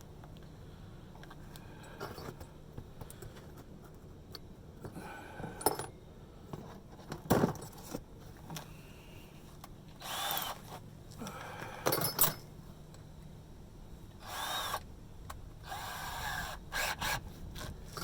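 A power drill run in several short bursts, each spinning up and winding down in under a second, as it is tried on the hole in a metal hanger strap. A few sharp metal knocks come earlier.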